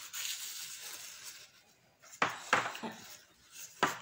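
Plastic chess pieces knocked over and clattering on the board: a few sharp clicks and knocks from about two seconds in, after a soft rustle in the first second.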